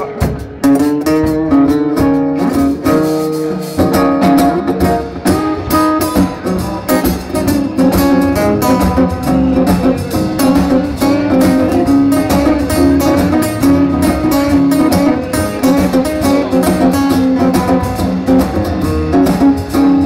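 Live band playing an instrumental intro on two acoustic guitars, strummed and picked, with keyboard and drums. The sound grows fuller and deeper about four seconds in.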